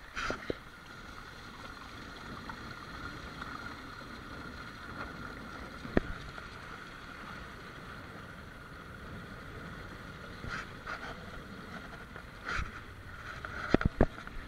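Water rushing and splashing along the hulls of a Minicat Guppy catamaran under sail in shallow surf, a steady wash of noise with a few brief splashes. Sharp knocks sound once about six seconds in and several times near the end.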